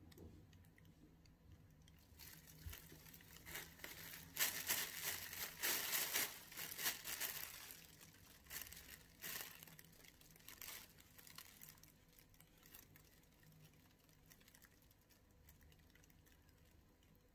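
Thin plastic carrier bag crinkling and rustling as a cat climbs onto it and settles down in it, loudest in the first half and dying away to faint crackles as the cat lies still. The owner says the cat rustles the bag like this to get fed.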